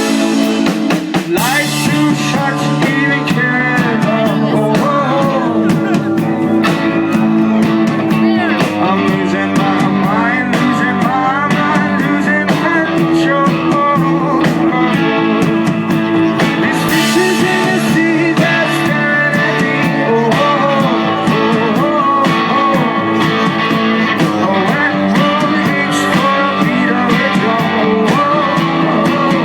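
Indie rock band playing live, with guitars, drums and a male lead singer, recorded on a phone's microphone.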